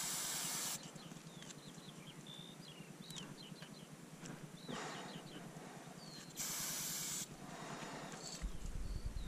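Aerosol spray paint can hissing in two short bursts: one stops under a second in, the other comes about six and a half seconds in and lasts under a second. Faint short chirps fall between the bursts, and music starts near the end.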